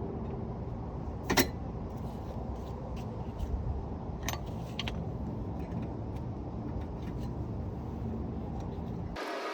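Metal clicks and clinks as the spring clip is worked off a brake caliper, the sharpest about a second and a half in, over a steady low rumble of background noise. Near the end the background changes abruptly to a thinner hiss.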